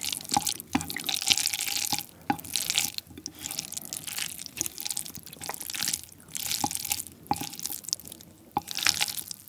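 Wooden chopsticks mixing sauce-coated jjapaghetti noodles with shrimp and octopus on a plate: wet, sticky squelching strokes about once a second, with sharp clicks of the chopsticks against the plate.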